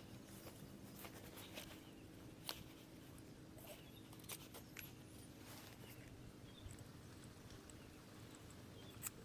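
Near silence: a faint steady low hum with a few scattered light clicks, the sharpest about two and a half seconds in, again near four seconds and just before the end.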